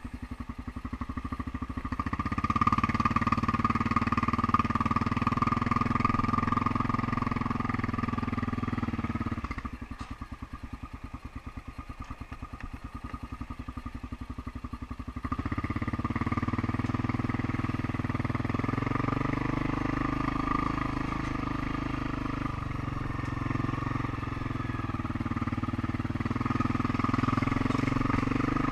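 ATV engine idling, then running under throttle from about two seconds in. It drops back to idle for several seconds around the middle, then pulls under throttle again from about fifteen seconds in.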